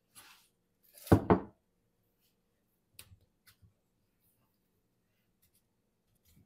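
Salad-making handling sounds: a short soft rustle of lettuce, then one loud clunk with a brief ring about a second in, then a few light taps around three seconds in as cherry tomatoes go into a glass bowl.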